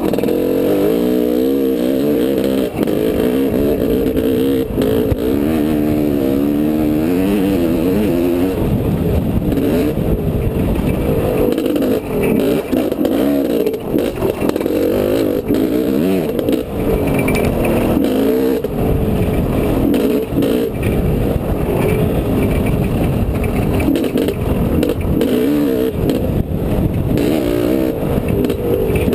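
Honda CR500 single-cylinder two-stroke dirt bike engine running under changing throttle, its pitch rising and falling as the rider works the throttle on the trail, with a rough wind and bump rumble on the helmet-mounted microphone.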